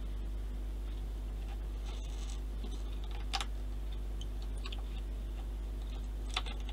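Fingers handling and threading rigging line on a plastic model ship's mast: faint scratches and small ticks, with two sharper clicks about three and a half and six and a half seconds in. A steady low hum runs underneath.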